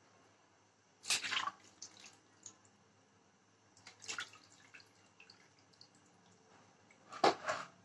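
Water splashing and dripping in a plastic basin of cut catfish pieces: short bursts of splashing about a second in, around four seconds and again near the end, with scattered small drips between.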